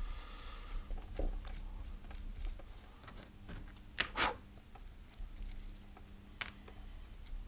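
Light metallic clicks and taps as the locking nut is turned off the threaded shaft of a scooter throttle potentiometer and the small parts are handled, with two sharper clicks about four seconds in.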